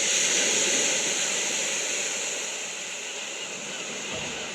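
Recording of ocean waves on Earth: a steady hiss of surf, loudest at the start and easing off a little after a second or two.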